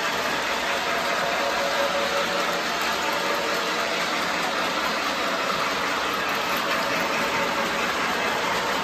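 Electric model train running along its track: a steady rumble of wheels on rails with the hum of the locomotive's motor.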